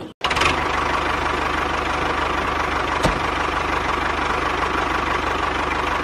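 Tractor engine idling steadily with an even low pulse, cutting in abruptly just after a brief dropout at the start, with a single click about three seconds in.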